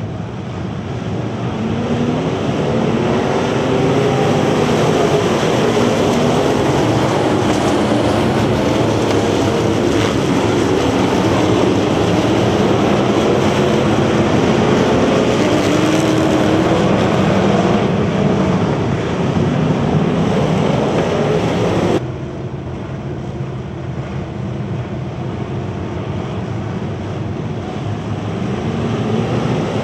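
Engines of a pack of dirt-track bomber-class stock cars running together, a thick engine drone with pitches rising and falling as the cars pass. The sound drops suddenly about two-thirds of the way through, then builds again near the end.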